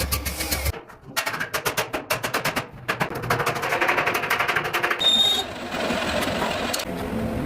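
Rapid mechanical strikes, about ten a second, from a power tool working metal, in two runs with a short break. A steadier machine noise follows, with a brief high squeal about five seconds in.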